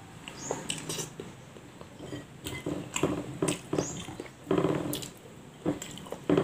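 A person eating with their fingers, chewing and smacking their lips close to the microphone, with wet mouth clicks and smacks scattered through and a few louder chewing bursts.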